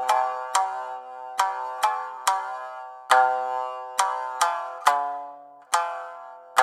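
Background music: a melody of single plucked notes, about two a second, each struck sharply and ringing away.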